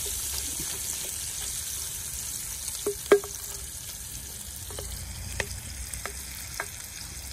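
Bacon and sausage sizzling in a Dutch oven, with a utensil clicking against the pot about six times as the meat is stirred, the loudest knock about three seconds in.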